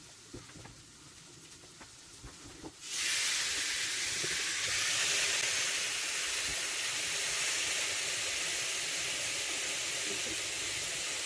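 Electric waffle maker cooking steak and onions: faint crackling and small pops from the open plates, then about three seconds in the lid comes down and a loud, steady sizzling hiss of steam starts as the food sears between the hot plates.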